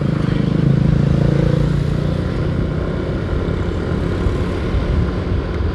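Motorcycle running at road speed, with steady wind and road rush on the rider's microphone. An engine hum is strongest for the first couple of seconds, then eases.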